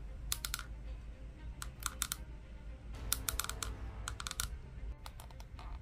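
Jointed plastic arm of an S.H. MonsterArts Jet Jaguar action figure being bent by hand, its joints clicking in four quick bursts of several clicks each, over faint background music.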